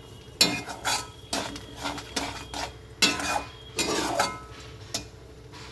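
A metal spatula scraping and clinking against a metal kadai while stirring thick tomato chutney, in irregular strokes.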